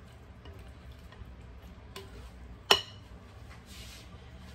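Kitchen dish handling: one sharp clink of a utensil or dish against a bowl a little past halfway, ringing briefly, over a low steady hum.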